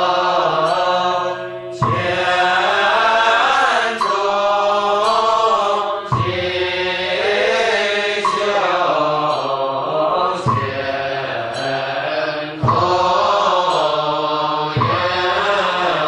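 Buddhist monastic assembly chanting the morning service liturgy in unison: a slow, melodic chant in phrases that break off and restart every few seconds.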